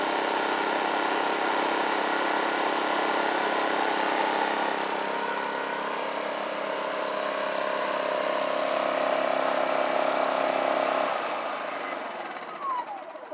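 Predator 2500-watt inverter generator's small engine running steadily on its first start. About eleven seconds in it shuts off unexpectedly and winds down, the sound falling away; the owner does not know why it stopped.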